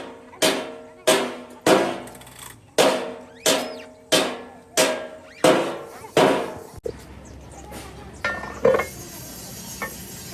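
A hammer striking a metal engine part in steady, evenly spaced blows, each ringing out; about nine blows stop some six seconds in, followed by a few lighter metallic clinks.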